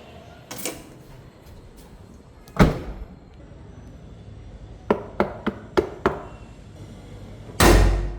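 Suzuki S-Cross doors and latches working: a light knock, a heavy clunk, a quick run of five sharp clicks, then a loud heavy thud near the end that sounds like a door shutting.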